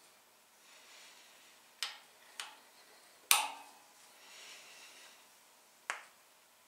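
A steel hex key and clamp hardware clinking on a milling machine table during setup: four sharp metallic clicks, the third loudest, with faint scraping between them.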